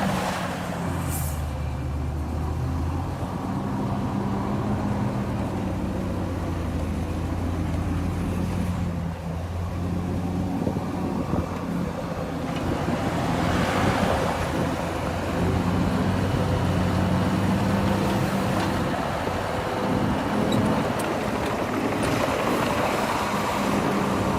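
Diesel engine of heavy construction machinery running under load, its low drone shifting up and down in pitch and strength as the machine works.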